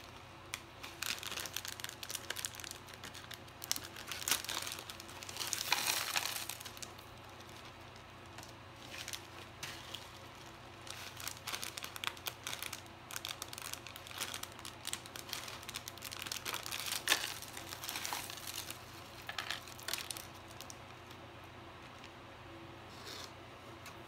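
Small plastic packets of dried ramen toppings crinkling and tearing as they are handled, opened and shaken out over dry instant noodles, in irregular bursts that are loudest about six seconds in.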